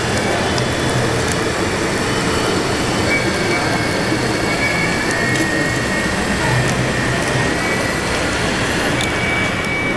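Large-scale radio-controlled Caterpillar D11T bulldozer at work in dirt, giving a steady mechanical running noise. A faint high whine comes and goes from about three seconds in.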